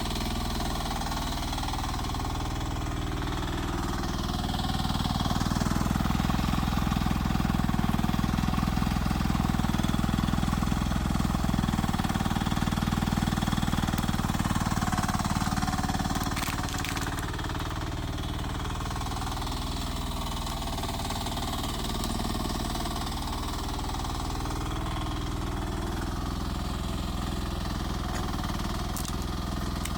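Small mini excavator engine running steadily. It grows louder from about five seconds in for roughly ten seconds, as under working load, then settles back to a lower, even run.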